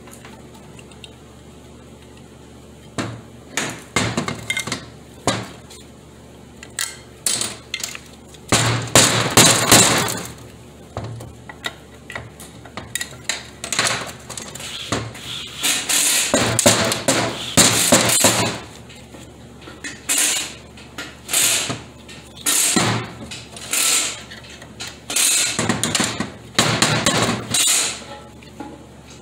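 Irregular metallic clanks, knocks and clattering as the aluminum valve body of a 4T40E automatic transmission is handled and worked apart, coming in bursts several seconds apart.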